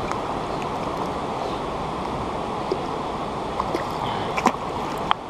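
Steady rush of river current flowing close to the microphone, with a few brief sharp splashes near the end.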